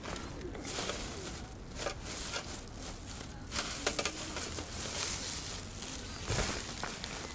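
A plastic bag crinkling and rustling as it is handled and packed, with irregular crackles.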